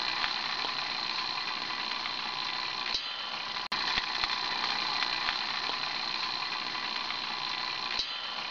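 A steady machine-like hum with a high whine, cutting out for an instant about four seconds in.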